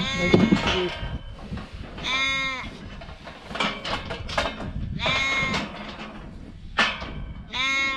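Farm livestock calling four times, short pitched bleat-like calls spaced two to three seconds apart.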